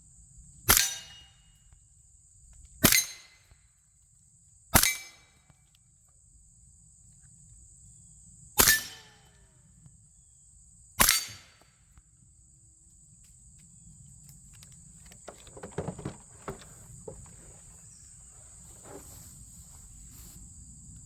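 Five suppressed shots of 10mm 220-grain subsonic ammunition from a CMMG Banshee carbine with a Dead Air Ghost suppressor, fired at uneven intervals over about ten seconds. Faint clicks and knocks follow near the end.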